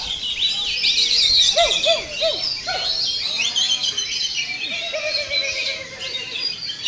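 Many songbirds singing over one another, as at a bird-singing contest: a dense chorus of high whistles, trills and chirps, with a run of lower swooping notes in the middle.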